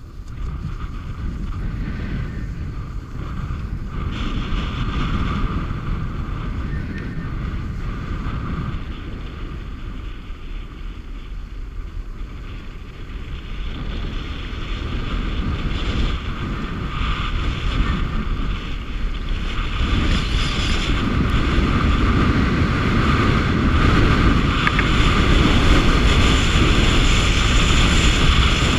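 Wind buffeting the microphone of a camera moving fast down a groomed ski slope, with the hiss and scrape of sliding over packed snow. It grows louder over the second half as speed builds.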